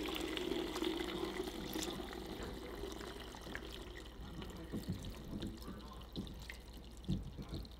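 Chicken broth poured from the pot through a strainer into a fat separator, the stream splashing and trickling and gradually tapering off, with a few light knocks in the second half.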